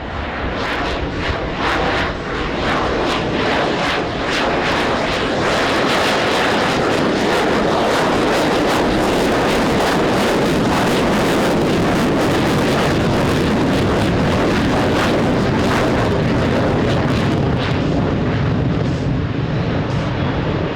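Lockheed Martin F-22 Raptor's twin afterburning Pratt & Whitney F119 turbofans in a loud, continuous jet blast with sharp crackle, swelling over the first couple of seconds and then holding steady.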